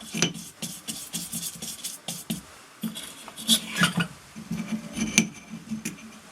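Irregular light metallic clicks, taps and short scrapes as a small watchmaker's screwdriver and its metal honing guide are handled and set up on a whetstone, a few of the clicks sharper than the rest.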